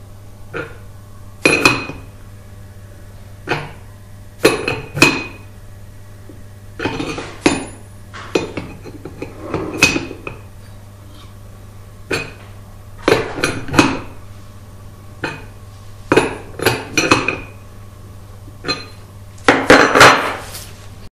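Open-ended steel spanner clinking against the hex of a pull stroke setter as it is re-seated and turned again and again, winding the setter into the head of an Avdel 73200 hydraulic installation tool. The clinks come irregularly, about one every second or two, with a louder cluster of clanks near the end as the spanner is laid down on the table.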